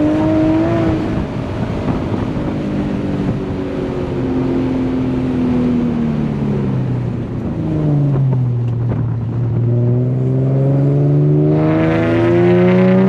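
Infiniti G37's 3.7-litre V6 through an ISR single-exit GT exhaust, heard while driving. The engine note falls steadily for about eight seconds as the car slows, then climbs again and grows fuller near the end as the car accelerates.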